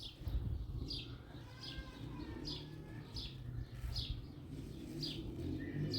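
A bird chirping steadily, about eight short high falling chirps evenly spaced a little under a second apart, with pigeons cooing low underneath.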